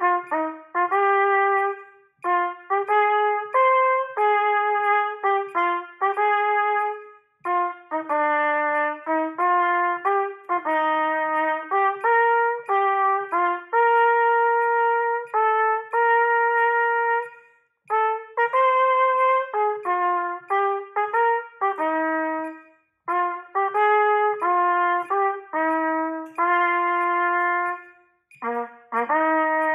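Solo B-flat trumpet playing a march-style etude in dotted rhythms, with short clipped notes alternating with longer held ones. It plays in phrases broken by several short pauses for breath.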